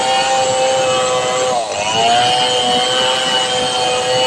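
Large two-stroke chainsaw running at full throttle while rip-cutting a log lengthwise along the grain. Its pitch dips briefly about a second and a half in as the chain bogs under load, then climbs back.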